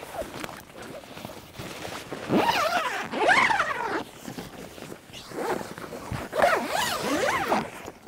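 Tent zipper being pulled in two long runs, the first about two seconds in and the second about five seconds in, each with a quickly wavering rasp.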